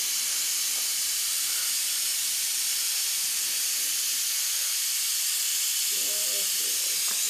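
Steady, even high-pitched hiss, with a brief low murmur of a voice about six seconds in.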